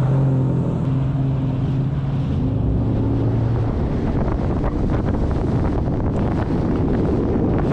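Bass boat's outboard motor running at speed, with heavy wind buffeting the microphone and water rushing along the hull. The steady engine tone fades a little under four seconds in, leaving the rush of wind and water.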